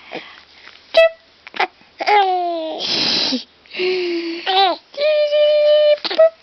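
A baby vocalizing in a run of drawn-out, whiny cries and squeals, some falling in pitch and one held on a single high note, with a breathy, noisy cry in the middle. A single short sharp sound comes about a second in.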